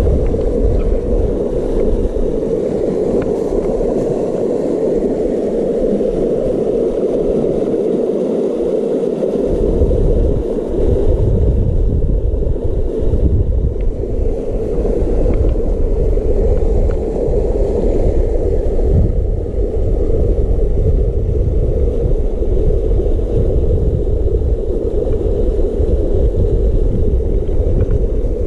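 Steady rush of river water, with wind buffeting the microphone as a rough low rumble from about ten seconds in.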